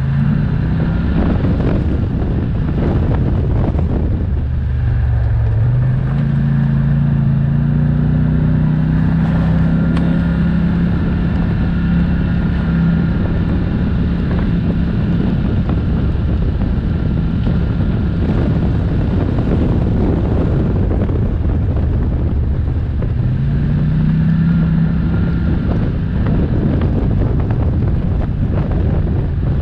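ATV engine running while riding, its pitch climbing as it speeds up about five seconds in and again near the end, with wind buffeting the microphone.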